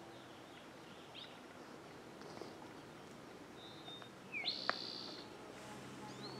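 Songbirds calling outdoors: a few short chirps, then a louder whistled call about four and a half seconds in, with a sharp click during it, over faint steady background noise.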